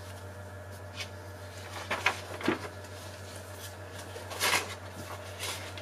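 Room tone in a pause of speech: a steady low hum, with a few short soft rustling or breathing noises, the longest about four and a half seconds in.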